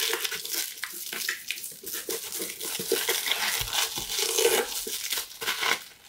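Plastic wrapping crinkling and rustling as it is handled and pulled off a clay teapot: a dense, irregular run of crackles.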